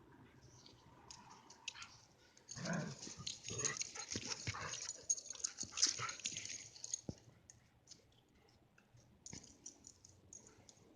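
A pet dog making vocal sounds and scuffling noises while at play, loudest and busiest from about two and a half to seven seconds in, with scattered light clicks afterwards.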